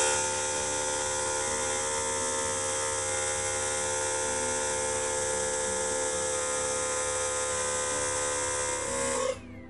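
Small electric air compressor running with a steady, buzzing hum, then shutting off suddenly about nine seconds in.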